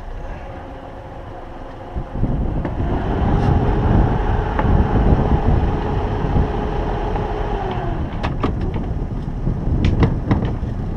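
Sailboat's auxiliary engine running up to a steady hum over a low rumble, held for about five seconds, then easing off. A run of sharp clicks and knocks follows near the end.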